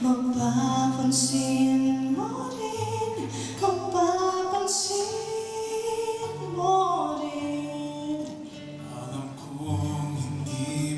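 A woman and a man singing together, accompanied by two strummed acoustic guitars.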